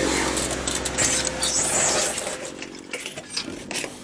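An engine running steadily and fading out over the first couple of seconds, followed by scattered light clicks and taps.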